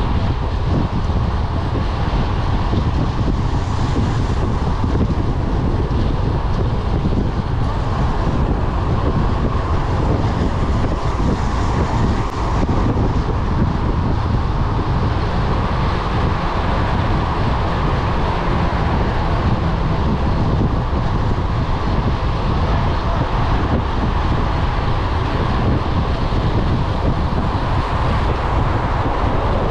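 Steady wind rushing over the microphone of a handlebar-mounted camera on a bicycle riding at speed, a constant buffeting rumble with no breaks.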